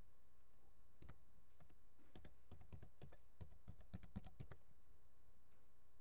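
Keystrokes on a computer keyboard: about a dozen quick, irregular taps over a few seconds while a sudo password is typed at a terminal prompt and Enter is pressed.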